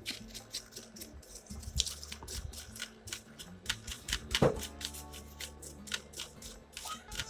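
Quick, irregular clicks and taps of small laptop case parts and screws being handled and fitted back together, with one louder knock about four and a half seconds in.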